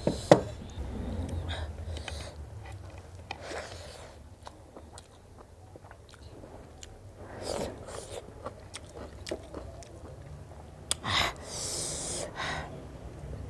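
Close-miked chewing and biting of food, with wet mouth sounds and scattered sharp clicks. Louder bursts of noise come about seven and a half seconds in and again from about eleven to twelve and a half seconds.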